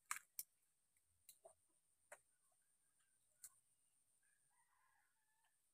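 Near silence broken by a few faint sharp ticks, two close together near the start and a few sparse ones after, with faint brief chirps near the end.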